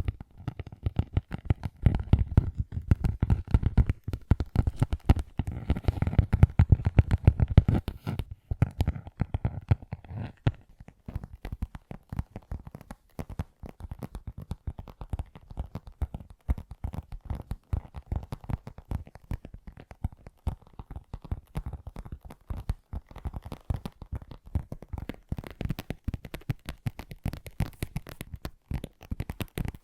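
Fingertips tapping and scratching rapidly close to the microphone, a dense patter of soft taps. The taps are heavier and fuller for about the first ten seconds, then lighter and thinner.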